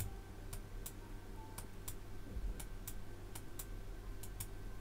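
Faint, light clicks, irregular, about two or three a second, over a low steady hum.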